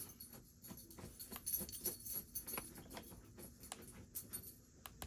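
Faint, irregular light clicks and rustles of something being handled.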